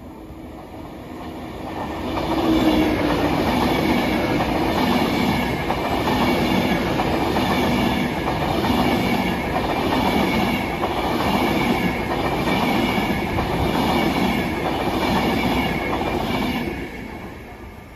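Avanti West Coast Class 390 Pendolino electric train passing through a station at speed. Its rush builds over about two seconds, then holds steady with a regular beat of wheel noise, and falls away quickly near the end.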